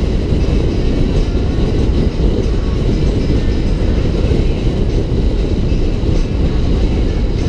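Steady wind and road noise of a car driving at highway speed: a loud, dense low rumble with ragged wind buffeting on the microphone.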